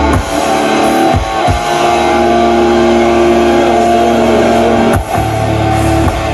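Live metal band playing: distorted electric guitars and bass hold chords. The riff is broken by a few brief, sharp stops, about two near the start and two more later on.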